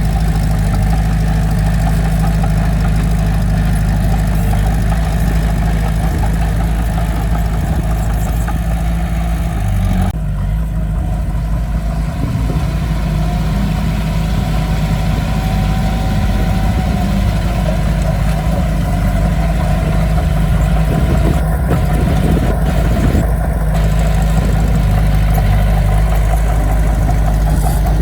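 Heavy diesel engine of earthmoving equipment running steadily, its sound changing abruptly about ten seconds in.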